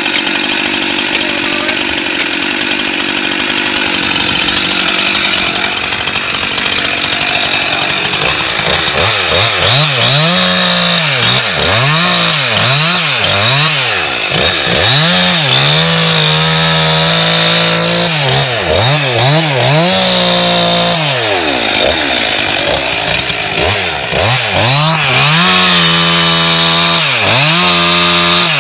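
Two-stroke chainsaw cutting down through thick lake ice. It runs steadily at first. From about nine seconds in, its engine speed dips and recovers over and over, about once a second, as the bar is worked in the cut.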